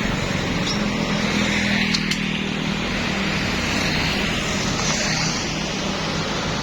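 A road vehicle's engine running at a steady pitch under loud road and tyre noise, with a couple of short sharp clicks about two seconds in.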